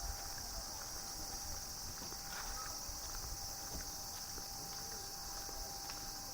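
Steady high-pitched chirring of crickets and other insects, with a faint low rumble and a few small clicks.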